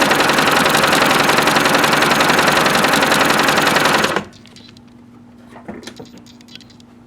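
Singer Touch & Sew 750 sewing machine running fast, its needle mechanism clattering in a rapid, even rhythm, then stopping abruptly about four seconds in. A few faint clicks follow.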